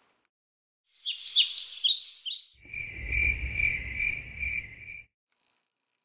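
Night-time cricket chirping: first a cluster of high, quick chirps, then a steady high trill pulsing about twice a second for a couple of seconds, over a low rumble, cutting off suddenly.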